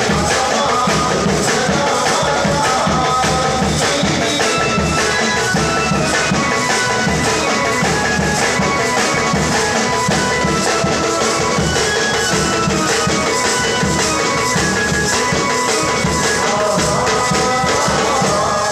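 Indian wedding-band music from a band cart: a melody of held, stepping notes over steady drumming, loud and continuous.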